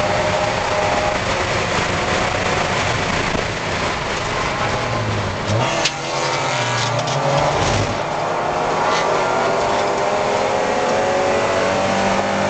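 A Spec Miata's four-cylinder engine at race pace, heard from inside the car. The revs drop around the middle, with a few sharp knocks, then climb steadily again toward the end.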